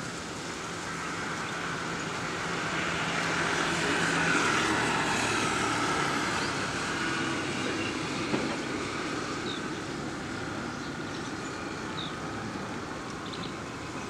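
Distant engine noise of something passing, swelling to a peak about four seconds in and slowly fading, with a low steady hum under it at first. A few short high chirps come in the second half.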